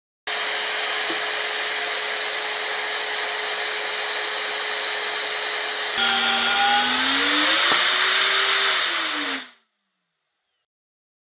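Nitto Kohki ATRA ACE portable magnetic-base drill running with a steady whine. About six seconds in the sound changes abruptly to one whose pitch slides up and down, then cuts off suddenly near the end.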